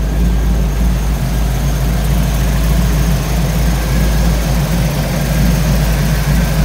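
5.3-litre LS V8 engine idling steadily with an even, low hum.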